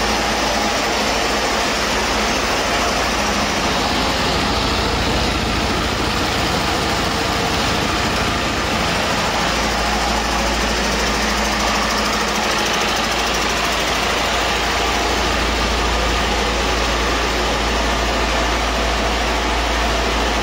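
A 2019 Detroit Diesel DD13 inline-six truck diesel engine running steadily at a constant speed on a test stand during a test run of the used engine.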